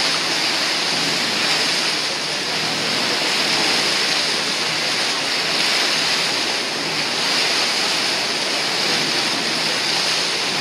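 Steady rushing of water and wind around a moving cruise boat, an even hiss with no distinct splashes or tones.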